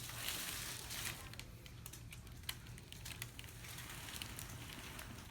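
Faint crinkling and rustling of the treatment table as the patient shifts into position for a side-lying chiropractic adjustment, with a sharper click about halfway through.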